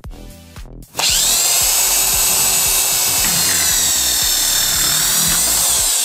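Corded electric drill with a hole saw starting up about a second in and running at a steady high-pitched whine as it cuts a hole through a plastic pipe end cap.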